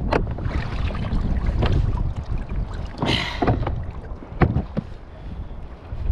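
Wind rumbling on the microphone on a kayak at sea, with scattered sharp knocks and a brief rushing splash about halfway through.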